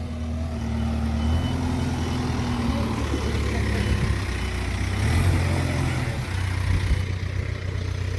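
Diesel engine of a JCB backhoe loader running under work, its note shifting up and down several times as the machine is worked.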